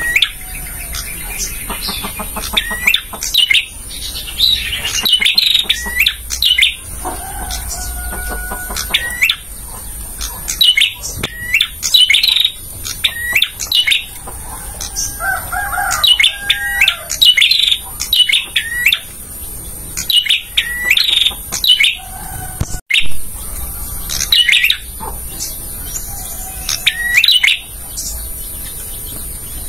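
Male prinia (prenjak) singing: bursts of sharp, quickly falling chirps repeated every second or so, with some lower, longer notes between them.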